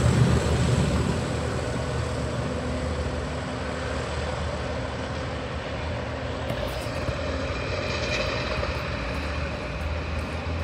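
Class 37 diesel locomotives' English Electric V12 engines droning as the train pulls away. The low engine hum is loudest at first, fades over the first second or two, then holds as a steady distant rumble.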